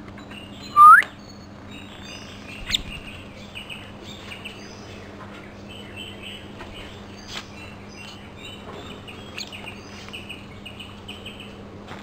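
Common myna calling: one loud rising whistle about a second in, then a run of short high chirps and squeaks.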